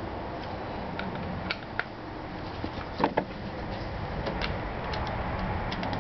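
Scattered small clicks and knocks of a Phillips screwdriver against the plastic air filter housing of a Honda Elite 110 (NHX110) scooter, as the new filter's screws are driven into the plastic. The loudest are a pair of knocks about three seconds in.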